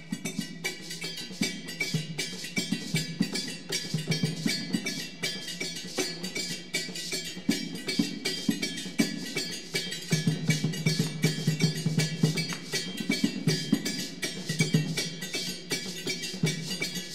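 Traditional percussion ensemble playing a fast, steady rhythm: low hand-drum strokes under dense, sharp clicking of small hand-held percussion.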